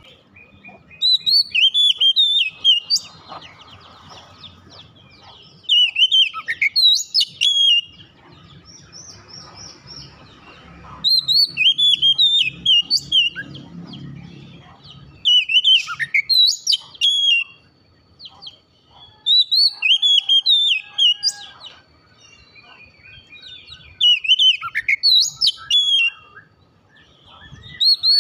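Oriental magpie-robin (kacer) in full song: repeated loud phrases of rapid whistled notes, each burst under two seconds long, coming about every four seconds.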